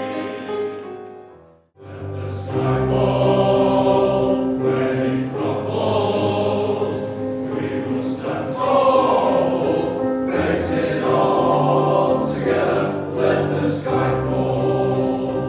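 Male voice choir singing a song in harmony, holding long chords; the sound breaks off briefly between phrases a little under two seconds in, then resumes.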